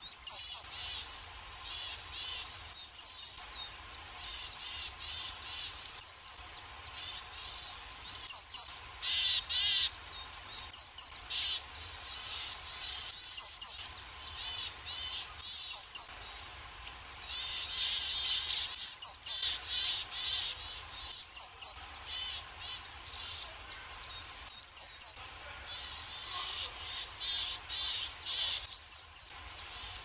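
Small songbirds calling at a winter feeder: clusters of loud, sharp, high chirps every two to three seconds over steady softer twittering.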